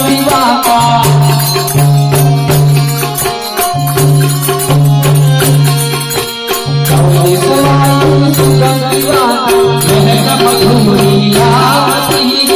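Devotional aarti music: held low notes repeating with short breaks, a melody line above them, and fast, dense jingling percussion.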